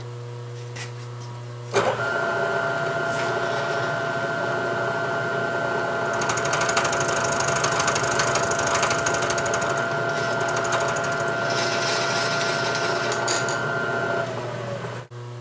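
Milling machine taking a side cut with a half-inch end mill on the head of an O1 tool-steel bolt: a steady machine whine starts suddenly about two seconds in, harsher cutting noise builds through the middle of the pass, and the whine winds down and stops near the end.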